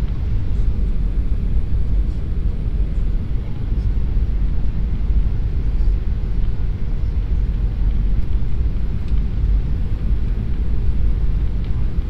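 Steady low rumble of airliner cabin noise, engines and rushing air heard from inside the cabin, as the plane descends on approach to landing.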